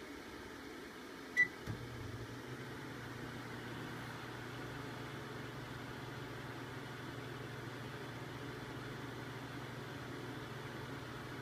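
Microwave oven switched on: a single short beep, then the oven starts and runs with a steady low hum over a constant hiss.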